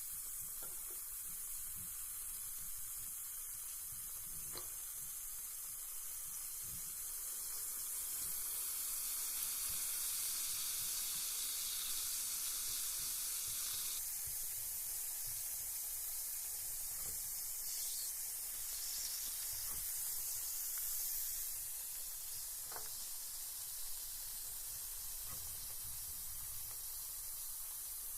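Carbonated bath bomb fizzing in bath water: a steady high hiss of bubbles with a few faint ticks, slightly louder through the middle.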